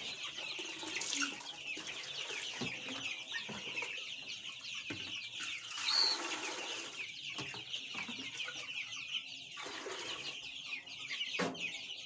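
A flock of 21-day-old Sasso and baladi chicks peeping continuously, many high, quick chirps overlapping. A few light knocks sound as plastic buckets and a drinker are handled.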